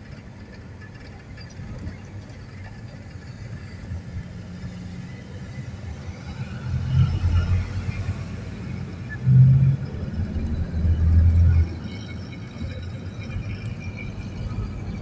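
Low rumble of a road vehicle on the move, heard from inside the cabin, swelling louder three times in the middle.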